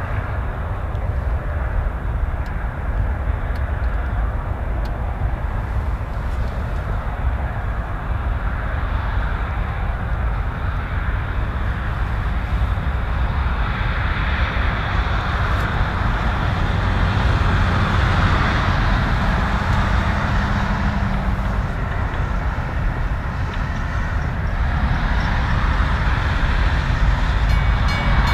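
Diesel locomotive engine running as the locomotive approaches at low speed, a steady low rumble that grows gradually louder toward the end.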